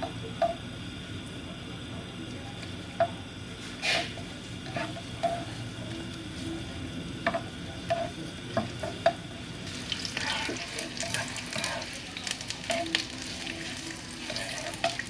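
Sliced ginger frying in sesame oil in a nonstick pan, with a spatula clicking and scraping against the pan as the slices are stirred. About ten seconds in, the sizzle grows into a dense, steady crackle as the oil heats up.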